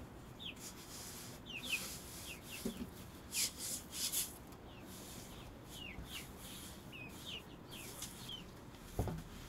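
A shovel scraping and scooping wet cement on the coop floor, a few short rasping scrapes, while chickens peep repeatedly with short, high notes that fall in pitch.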